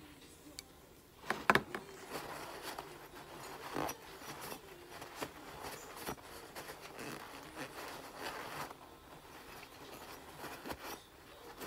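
Blue shop towel rustling and rubbing on a pistol frame as it is wiped down, after a couple of sharp clicks about a second and a half in.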